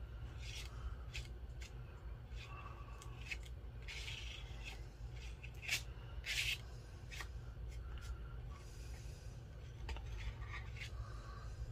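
Texture paste being smeared and scraped across a stencil on paper: irregular short scraping and rubbing strokes, with a couple of louder scrapes a little past halfway.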